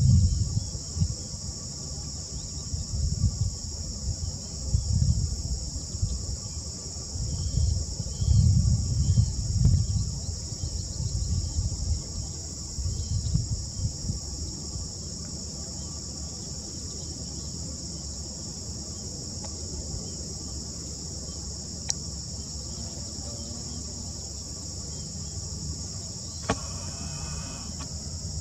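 Steady, high-pitched chorus of marsh insects, continuous throughout, with irregular low rumbles during the first half and a couple of short clicks near the end.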